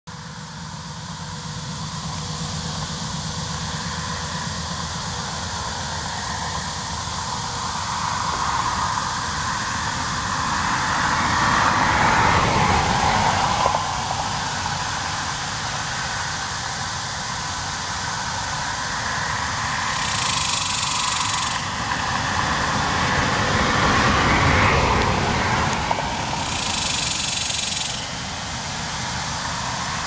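Highway traffic going past steadily, swelling loudest as vehicles pass about twelve and again about twenty-five seconds in, mixed with the buzzing calls of male superbus cicadas (Tibicen superbus). Two short cicada buzzes stand out in the last third.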